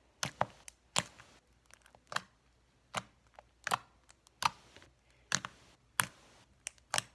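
Slime with silly string mixed in being squeezed and kneaded by hand, giving a string of sharp clicks and pops, about one every half second to a second.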